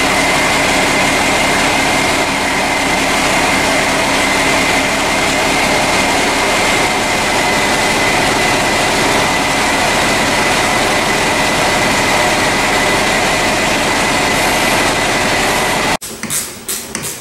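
An engine running steadily, with a steady high whine over it, cutting off sharply about a second before the end.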